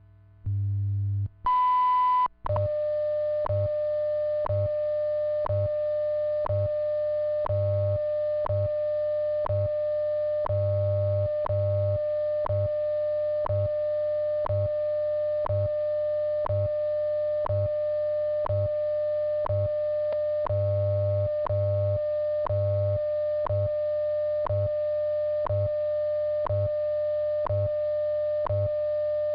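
WWV time-signal broadcast over a shortwave radio: a short beep marks the top of the minute about a second and a half in, then a steady 600-hertz tone runs with a click every second and low pulses of the time code beneath it.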